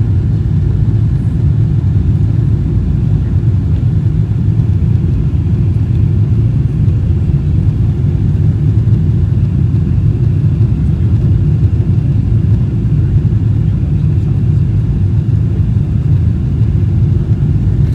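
Steady, loud airliner cabin noise in flight: a constant low rumble of engines and airflow with a faint hiss above it.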